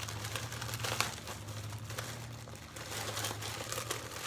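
Package wrapping crinkling and rustling as it is handled and opened, with a sharper crackle about a second in.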